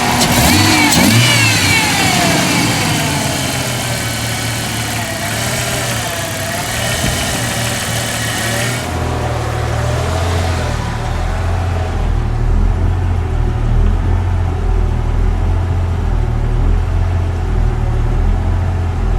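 Jeep Cherokee XJ 4.0 L straight-six engine idling, its idle speed hunting slowly up and down and sputtering, which the owner puts down to a failing throttle position sensor. About halfway through, the high hiss falls away and the low engine note comes to the fore.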